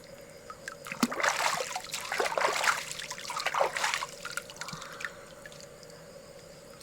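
Shallow river water splashing and trickling for about three seconds, starting about a second in, with scattered drips and small clicks around it.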